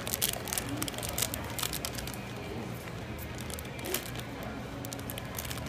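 Toy packaging being handled and torn open: irregular crinkling, rustling and small clicks.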